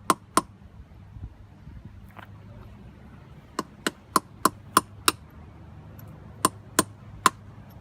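Hammer striking a buried clay sewer pipe to break it open: sharp ringing knocks in quick runs of about three a second, one early, six in a row midway and three near the end.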